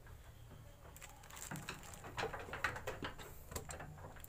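Scattered light knocks and rattles on the wooden slats of a raised sheep pen, starting about a second in, as sheep and handler shift about.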